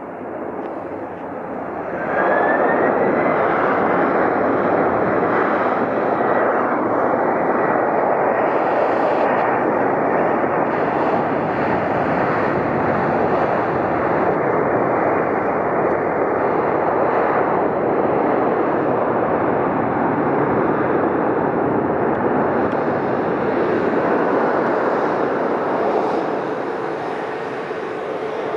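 Boeing 767 freighter's jet engines spooling up into reverse thrust just after touchdown. A rising whine comes about two seconds in, then a loud, steady roar runs through the landing rollout and eases off near the end.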